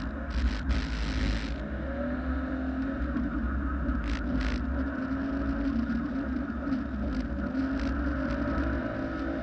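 Competition car's engine running hard as the car is driven round tight corners, its pitch rising and falling with the throttle, heard from a camera on the bonnet. Two brief bursts of hiss come about a second in and around four seconds in.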